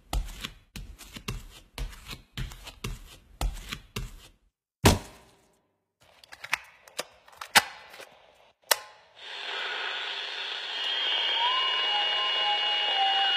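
A run of irregular knocks and thuds, two or three a second, with a louder single knock near the middle and a few lighter clicks after it. From about nine seconds in, a steady hiss with faint tones takes over.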